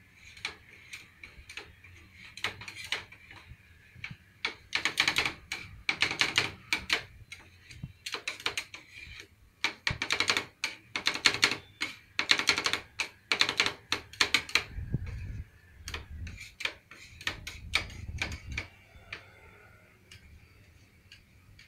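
Two steel spatulas chopping ice cream on a frozen steel plate: fast runs of metal clacks and scrapes, loudest in the middle, thinning out near the end as the mix is spread flat.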